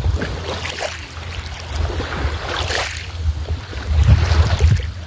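Gusty wind buffeting the phone's microphone: an uneven low rumble that swells and drops, with washes of hiss, loudest about four seconds in.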